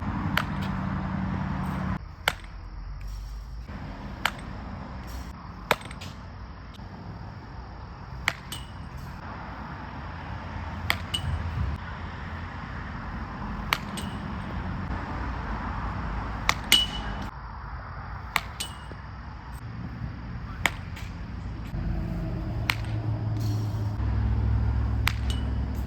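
Baseball bat hitting balls during batting practice: a sharp crack every two to three seconds, about a dozen in all, some with a short ringing ping.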